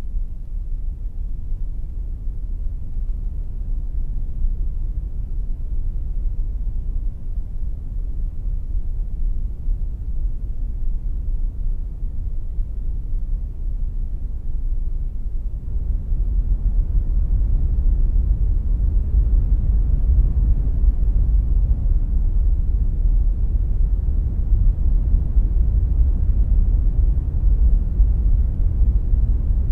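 Kilpatrick Audio Phenol analog synthesizer playing a deep, noisy ambient drone with no clear pitch. It swells louder and brighter about halfway through as its knobs are turned.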